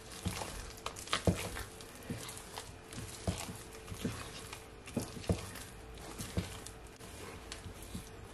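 Wooden spoon stirring thick cookie dough in a glass mixing bowl: soft wet squelches with irregular knocks of the spoon against the bowl, roughly one a second.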